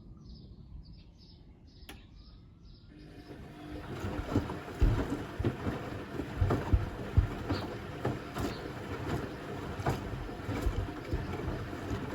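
Zanussi Essential ZWF12070W washing machine starting up about three seconds in and running loudly, with a steady high whine and irregular heavy thumps and knocks as the drum turns its load of watermelons.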